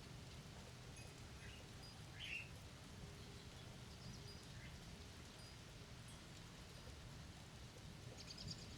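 Faint, scattered bird chirps, the clearest a short rising call about two seconds in, over a steady low background rumble of storm ambience.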